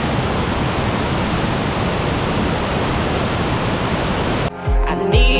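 Steady rushing of a large waterfall pouring down a mossy cliff. Electronic music with a heavy beat cuts in abruptly near the end.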